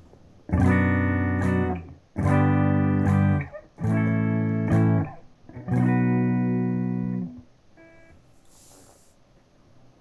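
Electric guitar strumming four chords through a Boss Katana Artist MK2 amp on its clean channel, with the variation button and contour engaged. Each chord rings for about a second before being cut off, and the last stops about three-quarters of the way through.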